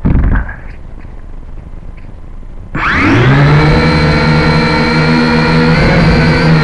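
A short thump at the start; then, about three seconds in, the motors of a camera-carrying quadcopter drone spin up suddenly and run as a steady, loud, multi-toned buzzing whine as it lifts off and flies.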